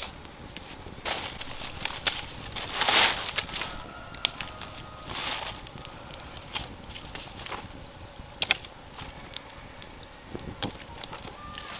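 Scattered clicks, knocks and short rustles of camping gear being handled, over a steady hiss of rain.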